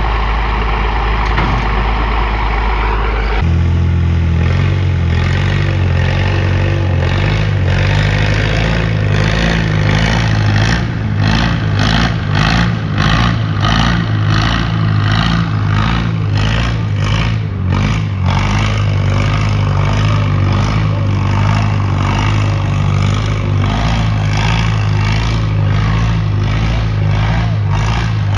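Engine running, changing abruptly about three seconds in to a steady low note, with rhythmic pulsing through the middle.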